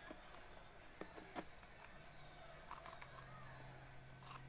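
Faint sticky clicks and soft crackles of clay slime being squeezed and kneaded in the fingers, a few sharper clicks about a second in. A faint low hum joins about three seconds in.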